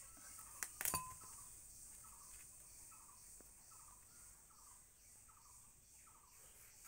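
Faint, evenly repeated short chirps, about two a second, from a small bird or insect. One sharp clink of glass or metal comes about a second in.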